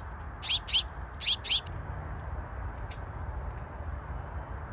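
Small songbird chirping: four quick chirps, each sweeping down in pitch, in the first second and a half, over a steady low background rumble.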